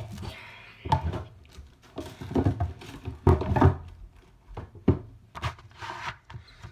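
Slime softened with shaving cream being squeezed and stretched by hand, giving a series of irregular squelches and soft pops, about half a dozen over a few seconds.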